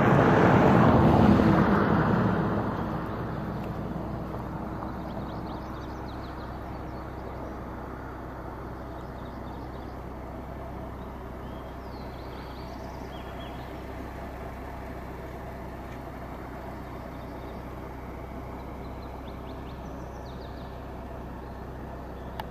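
A motor vehicle passes close by, loudest in the first couple of seconds and then fading away. After it, a steady low hum of engines or traffic remains, with faint high chirps now and then.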